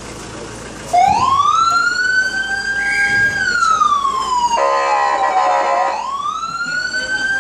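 Ambulance siren switched on about a second in, wailing: a rising tone that holds, slides slowly down and rises again near the end. A harsh buzzing tone sounds for about a second over the falling part.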